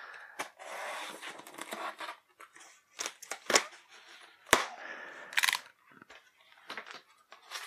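Flaps of a large corrugated cardboard shipping box being pulled open by hand: scraping and rustling of the cardboard, broken by several sharp cracks and snaps.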